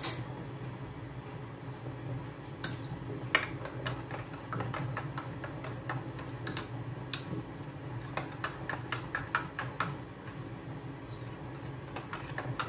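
Covered stainless steel pot heating on a glass-top cooktop, not yet boiling: irregular ticks and clicks, some in quick clusters, over a steady low hum.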